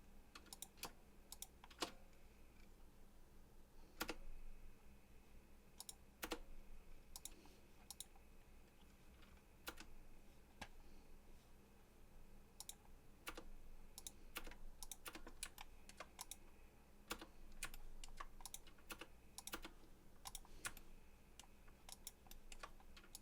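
Faint computer keyboard keys and mouse clicks, tapped at irregular intervals, sometimes several in quick succession, over a low steady hum.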